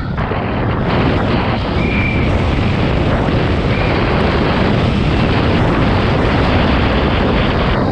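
Downhill mountain bike running fast over a rough, wet dirt track: heavy wind buffeting on a helmet-mounted camera's microphone over the rumble and rattle of the tyres and bike on the ground. Two brief high squeaks come about two and four seconds in.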